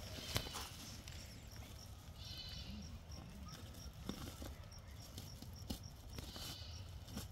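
Goats bleating, two short bleats about two seconds in and again near the end, with light clicks and rustles from woven plastic sacking being handled. A faint, high, even chirping runs underneath, about four times a second.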